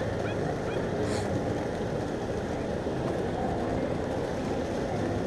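Steady low rumble of outdoor harbour background noise, with a few faint, short high chirps in the first second.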